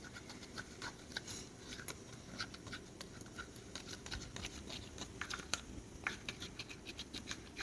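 Plastic spoon stirring and scraping sticky glue slime inside a small plastic cup, just after the contact-lens-solution activator has gone in: faint, irregular light clicks and scrapes.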